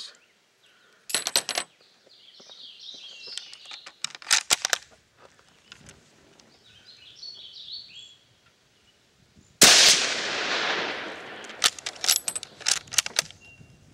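A Turkish Mauser bolt-action rifle in 8mm Mauser fires one shot about ten seconds in, the report trailing off for over a second. Groups of sharp clicks come before and after the shot, and birds chirp in the background.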